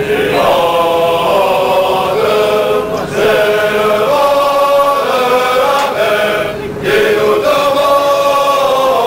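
A group of voices singing or chanting together in chorus, holding long notes in phrases of a few seconds with short breaks between.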